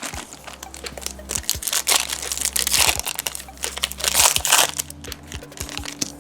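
Foil trading-card pack wrapper being crinkled and torn as it is worked open, a stubborn pack that doesn't open easily, with louder spells of crackling about halfway through and again a little later.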